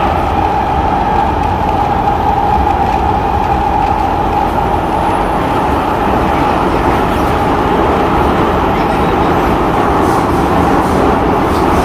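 SMRT C751B metro train heard from inside the car, running through a tunnel: a steady rumble of wheels on rail under a held traction-motor whine, which fades in the second half.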